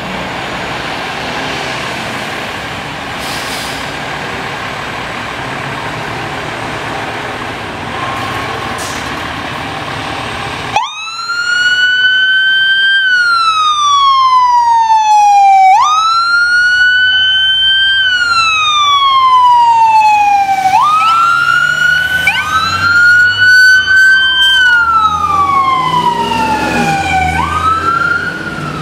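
Street traffic noise, then about eleven seconds in an emergency vehicle siren starts wailing, each cycle rising sharply and falling slowly over about five seconds. From about twenty-two seconds in a second siren overlaps it, as a fire engine and a rescue ambulance both run sirens, with low engine rumble beneath.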